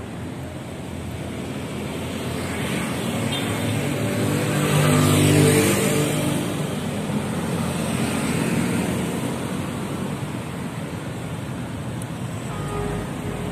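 Road traffic going past: steady noise of cars and motorcycles, swelling as one vehicle passes close about five seconds in, its engine note rising and then fading away.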